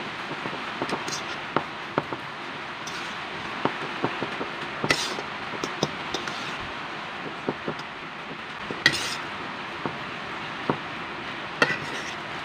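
A fork stirring a moist patty mixture of chopped malunggay leaves and egg in a bowl: irregular clinks and scrapes of the fork against the bowl. A few longer scrapes come about five and nine seconds in, over a steady background hiss.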